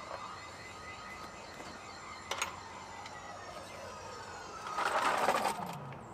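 A passing motor vehicle, its engine note falling in pitch as it goes by and loudest about five seconds in; a single sharp knock about two seconds in.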